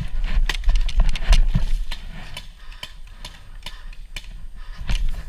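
Scattered sharp pops of skirmish-game guns firing at irregular intervals, over a rumbling movement and wind noise on the body-worn camera's microphone. The pops thin out in the middle and pick up again near the end.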